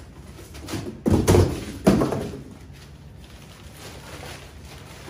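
Large empty cardboard shipping box pulled off the camping cot's carry bag and dropped on a concrete floor: two loud thuds about a second and two seconds in, with cardboard scraping.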